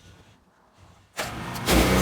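An engine starting: a brief crank a little over a second in, then it catches and runs loud and steady.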